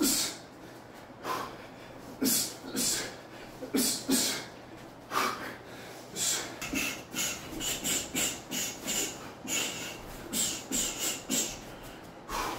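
A man's short, sharp exhaled breaths, hissed out with each punch while shadowboxing. They come a few at a time with gaps early on, then in quick runs of about two a second in the second half.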